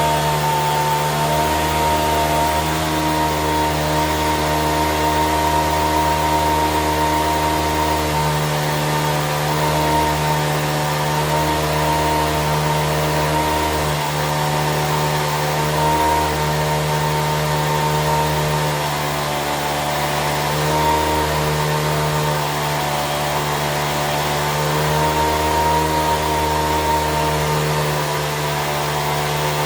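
Small electric gear motors of a hand-built RC Cat D11 bulldozer model running steadily: a continuous motor-and-gearbox whine with a high tone, rising and falling slightly in strength.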